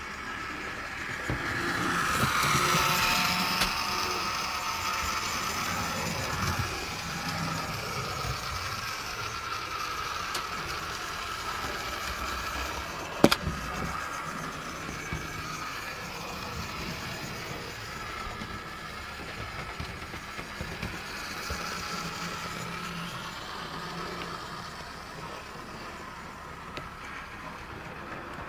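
Bachmann Class 08 model shunter's electric motor whining as the locomotive runs along the track. The locomotive is new and being run in. The whine swells to its loudest a few seconds in, then settles to a steady running note, with one sharp click about halfway through.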